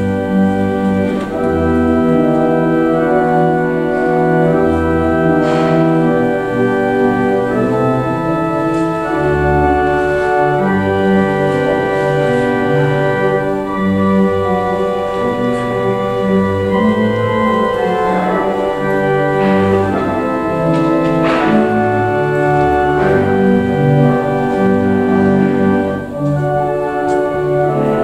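Church organ playing a closing voluntary after the service's dismissal: full held chords that change every second or so over deep pedal notes.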